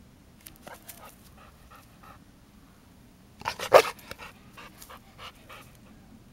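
Golden retriever panting in quick rhythmic breaths, broken about three and a half seconds in by a single louder burst of noise.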